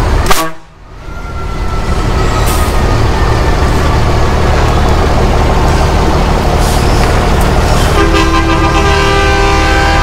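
Diesel truck engine rumbling steadily as a lowered Ford Cargo dump truck creeps along in low gear. About eight seconds in, a truck air horn starts sounding and is held steadily.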